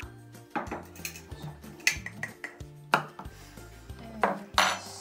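Several sharp knocks, about five, as a measuring cup is tapped against a glass mixing bowl to empty flour into it, over background music with a repeating bass line.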